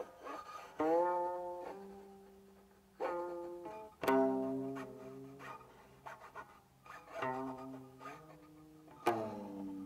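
Solo guqin, the seven-string Chinese zither, played slowly: a handful of plucked notes a second or more apart, each ringing and fading. Several notes bend in pitch as the left hand slides along the string, with a downward glide near the end.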